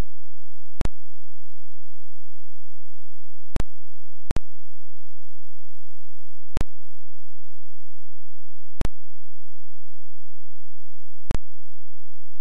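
A steady, very deep hum with no other sound over it. It is broken by six brief clicks where it drops out for an instant, two of them close together about four seconds in.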